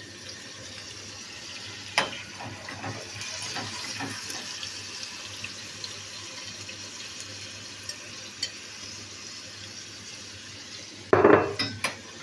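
A steady, watery hiss with a sharp click about two seconds in and a few light ticks. Near the end a metal spoon clatters loudly against the pan as the melted butter and molasses begin to be stirred together.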